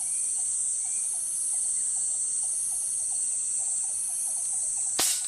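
Steady high-pitched insect drone with short, faint calls repeating beneath it, then a single sharp shot from the hunter's gun near the end, taken at a pigeon about to fly off.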